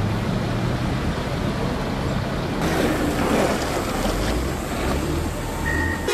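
Heavy diesel road machinery, a motor grader among it, running with a steady low drone. A louder wash of noise comes in about halfway through, and a high beeping tone starts near the end.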